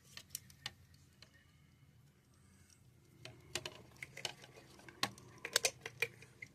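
Irregular light clicks and taps, sparse at first and coming thicker and louder from about halfway through.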